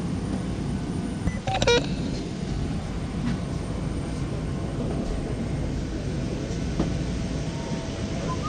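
Steady low rumble inside an articulated apron shuttle bus, with a short rattling clatter just under two seconds in.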